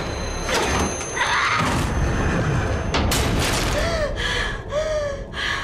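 Horror film sound design: heavy thuds and a wooden door knocking over a deep rumble, then short high gliding wails near the end.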